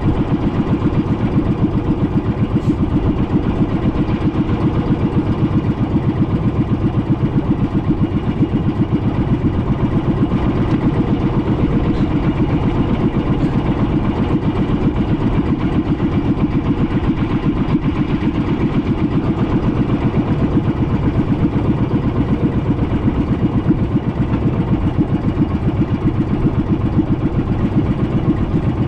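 A small fishing boat's engine running loud and steady, its rapid firing pulses unchanging throughout.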